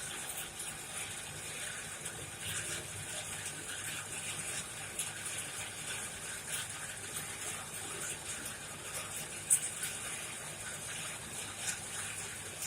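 Coal forge burning steadily: a rushing hiss of air and fire with scattered small crackles and pops, and one sharper pop about nine and a half seconds in.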